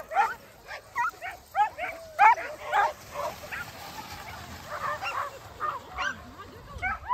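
Harnessed sled dogs yipping and barking in short, excited calls at the start of a run. The calls come thick for the first three seconds or so, then fewer.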